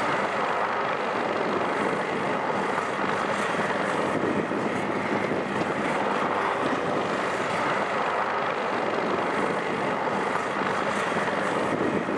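MH-60S Sea Hawk helicopter running, a steady engine and rotor noise that holds level without change.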